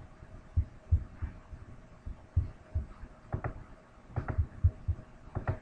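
Soft, irregular low thumps with a few sharper clicks among them, over a faint steady hum.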